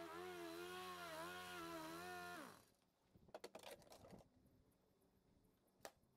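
A handheld yard power tool's motor runs at speed, then is switched off about two and a half seconds in, its pitch falling quickly as it winds down to a stop. Faint handling clicks and knocks follow.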